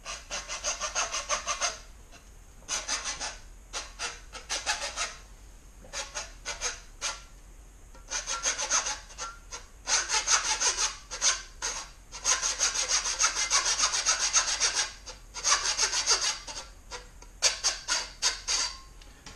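Hand saw cutting through a stained wooden hatchet handle, in runs of quick back-and-forth strokes with short pauses between them.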